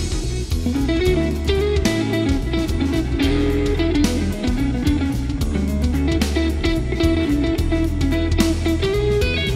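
Live rock band playing: an electric guitar plays a moving melodic line over bass guitar and drums, at a steady level.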